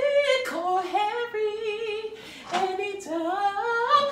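A single voice singing a wordless melody unaccompanied, a cappella. It holds notes and slides up from one to the next, with a short break about two seconds in.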